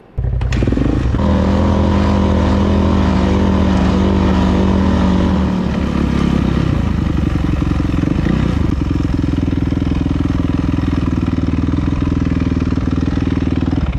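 Dirt bike engine running as it is ridden at low speed. It holds a steady note, shifts pitch about six seconds in, then settles to a steady note again.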